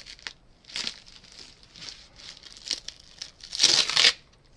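Blue painter's tape being ripped off plastic-bagged comic books, with the plastic crinkling: a few short rips, then a longer, louder one about three and a half seconds in.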